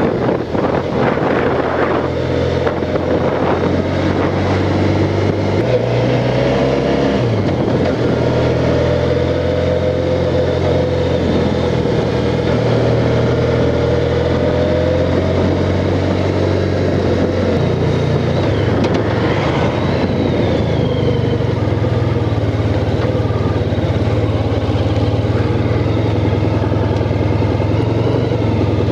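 Honda Crosstourer's V4 engine running under way, heard from the rider's seat. The engine note changes pitch about six seconds in and again near eighteen seconds, as the speed changes.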